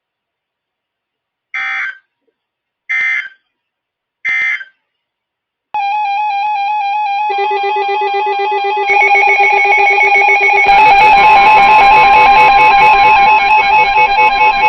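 Three short bursts of NOAA Weather Radio SAME data tones, about a second and a half apart: the end-of-message code closing the marine warning. About six seconds in, music starts with steady held notes that build in layers and get louder.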